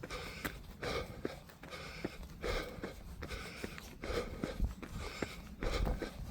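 A runner's hard, rhythmic breathing while running uphill, a noisy breath in or out about every second, with dull low thuds underneath.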